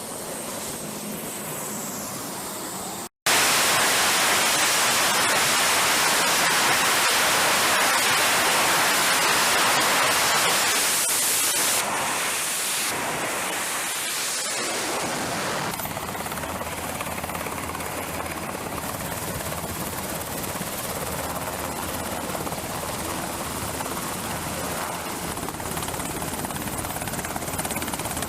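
Wind and sea noise, then after an abrupt cut the loud, steady noise of aircraft engines running on a carrier flight deck, which drops in level twice.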